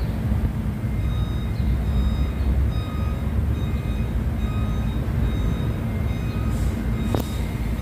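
Doosan D160S forklift's diesel engine running steadily at idle, a low even rumble. A single sharp click comes about seven seconds in.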